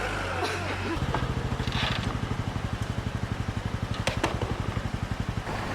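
An engine running with a fast, even pulse of about a dozen beats a second, starting about a second in and stopping near the end, with a couple of sharp clicks partway through.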